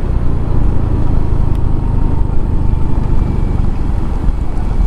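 Yamaha Mio scooter's engine running steadily while riding, with wind rumbling on the microphone and a faint steady whine above it.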